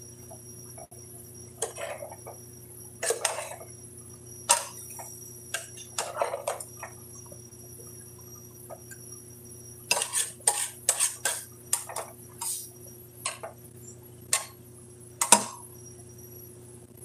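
Metal ladle knocking and scraping against the inside of a large metal cooking pot while stirring a stew: irregular clanks, a busier run of them about ten seconds in, and the loudest single knock near the end.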